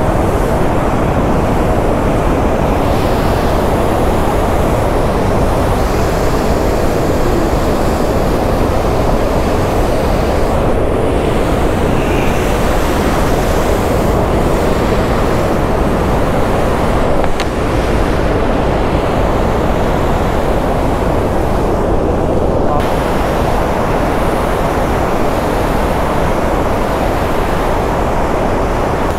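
Loud, steady rushing of a mountain stream cascading over boulders.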